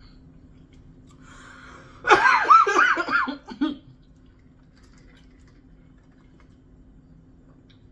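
A woman's short non-speech vocal outburst, several quick pitched bursts in about a second and a half, over a faint steady hum.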